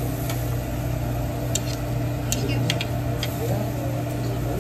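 Metal spatula clinking and scraping on a hibachi's steel griddle: a handful of short sharp clicks over a steady low mechanical hum.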